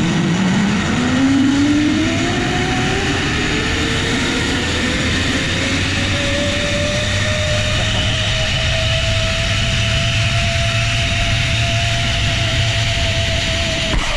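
Zipline trolley pulleys whining on the steel cable, the whine rising steadily in pitch as the rider gathers speed and then holding at a steady pitch, over a loud rush of wind noise.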